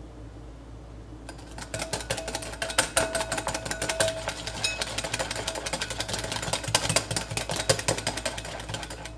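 Wire whisk beating thick dalgona coffee mixture in a glass bowl by hand, late in the whipping: rapid clicking of the wires against the glass, with the bowl ringing faintly. It starts about a second in and stops just before the end.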